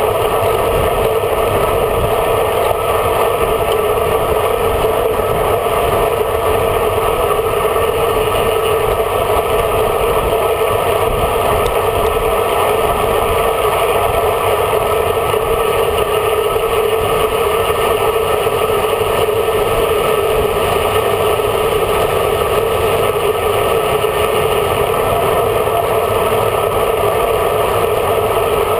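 Steady, loud wind rush over a handlebar-mounted camera's microphone on a road bike riding at speed, mixed with road noise.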